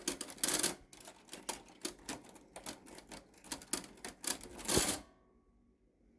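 Typewriter clattering: a run of irregular key strikes and mechanism clicks, with louder bursts about half a second in and just before five seconds, then it stops.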